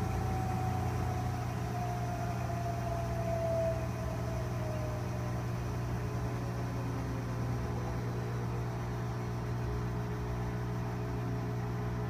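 GE washing machine coasting down from its full-speed spin: the motor's whine falls in pitch and fades out over the first five seconds, over a steady low hum as the drum keeps turning.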